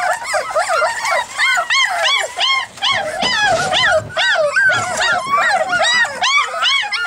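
A litter of blue-nose pit bull puppies whining and yelping together: short, high-pitched cries that rise and fall, several a second and overlapping, without a break.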